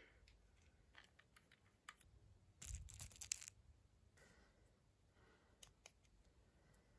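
Mostly near silence with scattered faint clicks. About two and a half seconds in comes a brief rattle of lead pellets in a metal tin as one is picked out, followed by light handling clicks of a GAT air pistol being loaded.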